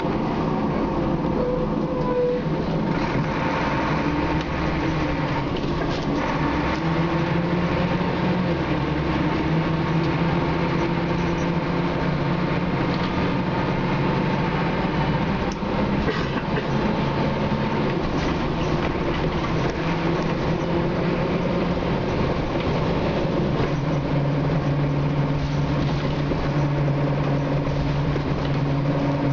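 Scania K93CRB bus on the move, heard from inside: its rear-mounted nine-litre six-cylinder diesel engine running, its pitch rising and falling as the bus speeds up and changes gear, over steady road noise.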